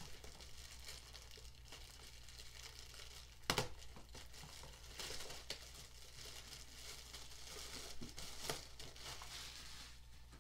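Packaging crinkling and rustling as it is handled, with one sharp knock about three and a half seconds in.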